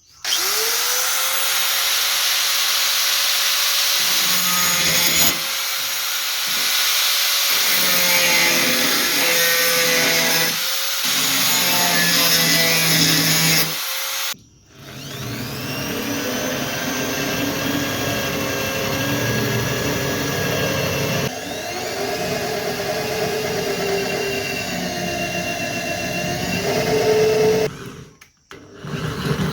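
Angle grinder with a wire brush running at speed against rusty steel: a steady whine over a harsh scratching hiss. It drops out briefly about halfway, winds back up with a rising whine, and breaks off near the end.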